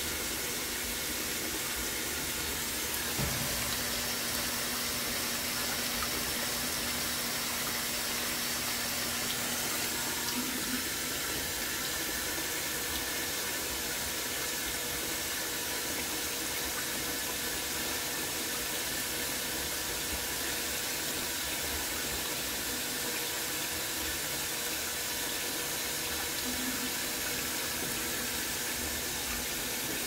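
Brastemp 14 kg top-load washing machine filling: water pours in from the rim around the drum onto a load of jeans, making a steady splashing hiss.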